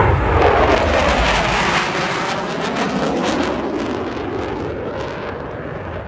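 Blue Angels F/A-18 jet passing over: a loud roar with crackle, falling in pitch as it goes by and fading away over the next few seconds.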